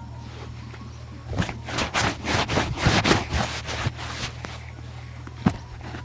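Shoe-polishing handling sounds: a quick run of scraping strokes on a shoe, then a couple of sharp taps, over a steady low hum.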